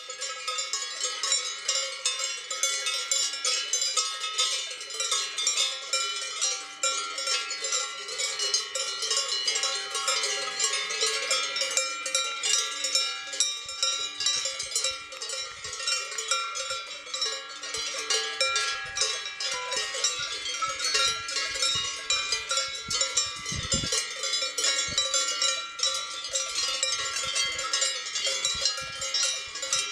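Many cowbells of different pitches clanging together in a continuous, irregular jangle, with a few dull thumps near the end.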